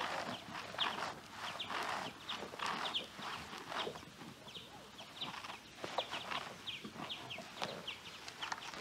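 Water lapping and clucking against a plastic kayak hull in pulses about once a second, with short, thin, high chirps throughout.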